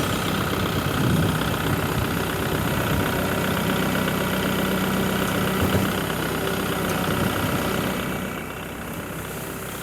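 Farm tractor engine running steadily after being started, pulling a tow strap hooked to a water tank; it eases off and quietens about eight seconds in.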